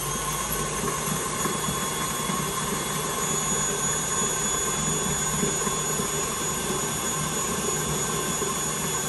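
KitchenAid tilt-head stand mixer running steadily, a motor whir with a thin high whine, as it beats brownie batter in its stainless steel bowl.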